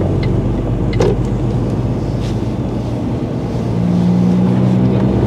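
Iveco HGV's diesel engine heard from inside the cab, pulling a laden trailer with a steady low drone that grows stronger about four seconds in.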